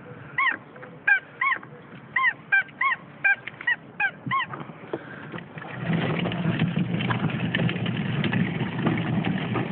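About a dozen short, high honk-like calls, each rising and falling in pitch. From about six seconds in, a steadier, louder rumble and whirr takes over: a child's electric ride-on toy car driving over paving.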